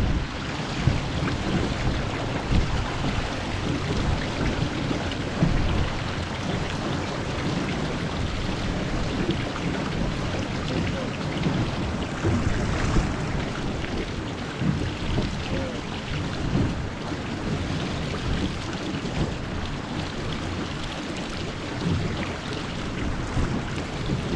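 Wind buffeting the microphone and water rushing past the hull of a Melges 15 sailing dinghy under way. It is a steady rumbling hiss with a few brief louder gusts.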